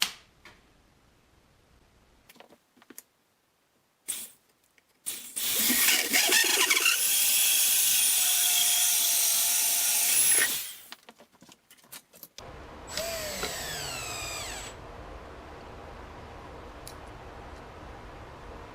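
A power tool's motor runs loud and high for about five seconds with a high whine, then stops; a few clicks come before it. Afterwards a quieter steady hum starts, with tones in it falling in pitch for a second or two.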